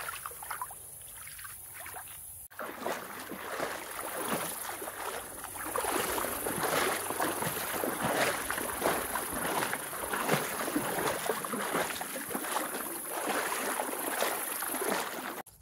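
Feet wading through shallow river water, with irregular splashing and sloshing. It is quieter for the first couple of seconds and louder after a sudden break.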